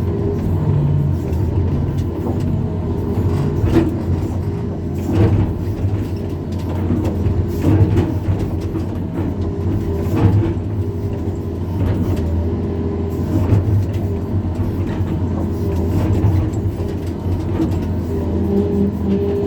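Excavator's diesel engine running steadily at working speed, with a few sharp metallic clanks scattered through.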